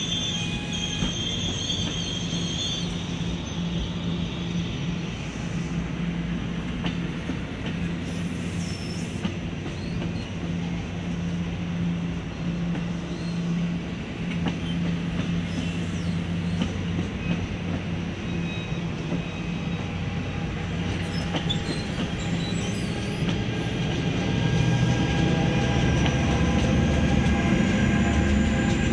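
Double-deck commuter train rolling past with a steady low locomotive engine hum and the rumble of its wheels. High-pitched wheel squeal comes in the first few seconds. The engine and rumble grow louder over the last few seconds.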